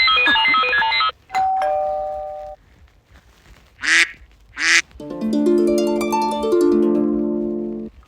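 iPhone 'Classic' ringtones previewed one after another, each cut off after a second or two. First a fast electronic beeping melody, then a two-note ding-dong doorbell chime, then two duck quacks, then a harp chord whose notes come in one after another.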